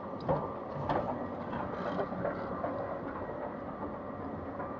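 Escalator running downward: a steady mechanical rumble and rattle of the moving steps with a faint hum, and two sharp knocks in the first second, as of stepping onto the step plates.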